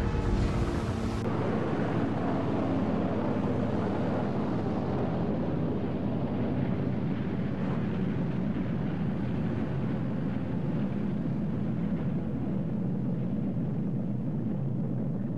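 Steady rumbling roar of a nuclear explosion, a film sound effect. About a second in it switches from a deeper sound with some pitched tones to an even, noisy rumble with less deep bass.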